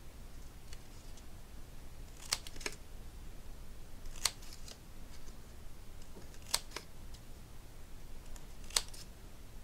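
Multi-blade fringe scissors snipping through a strip of lightweight printed cardstock to cut fringe: a short, crisp snip about every two seconds, a couple of them in quick pairs.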